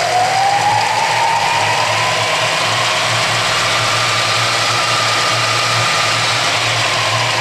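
Clausing horizontal mill's variable-speed Reeves drive (motor, V-belts and variable-pitch pulleys) running, with a steady low hum under a whine. The whine rises in pitch over the first second or so as the spindle speed is turned up, holds, then begins to drop near the end.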